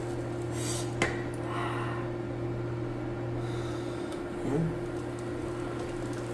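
Metal ladle scooping soup broth from a pan, clinking once sharply against it about a second in, over a steady low hum.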